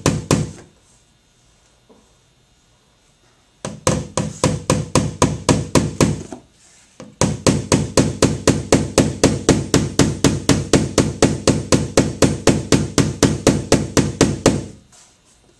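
Pointed body hammer tapping lightly and quickly on the steel body panel of a 2002 Volkswagen Beetle, about four taps a second, knocking down a high spot left from pulling the dent. The tapping stops about half a second in, resumes near four seconds, pauses briefly, then runs on steadily until just before the end.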